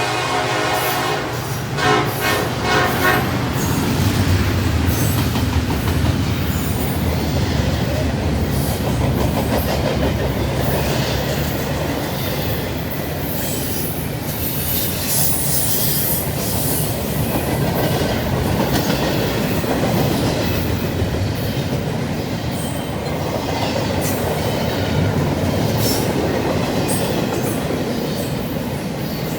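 The horn of the lead SD70ACe diesel locomotive sounding and stopping about three seconds in. Then the locomotives and freight cars roll past with a steady rumble and wheel clatter.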